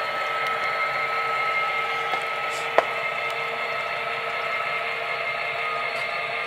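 Model diesel locomotives running with their onboard sound: a steady, engine-like drone from the small speakers, one sharp click about three seconds in.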